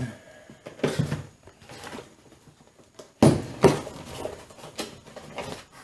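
Cardboard and plastic toy packaging being handled: scattered knocks and rustles, with a sudden louder rustle about three seconds in.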